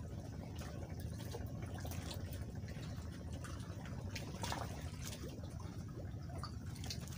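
Sea water lapping and trickling around the bamboo posts of a fishing platform, with small irregular splashes over a steady low rumble.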